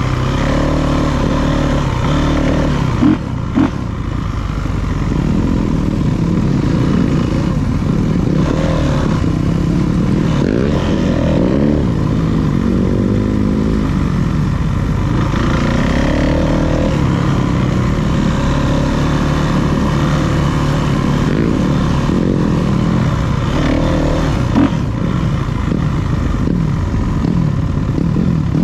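Dirt bike engine revving up and down as it is ridden around the track, its pitch rising and falling with the throttle. Two sharp knocks come about three seconds in and another near the end.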